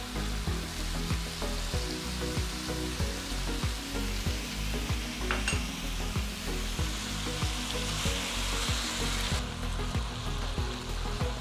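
Ground beef sizzling and frying in an electric skillet as it is stirred with a spoon, the sizzle dropping away sharply near the end. Background music with a steady low beat runs underneath.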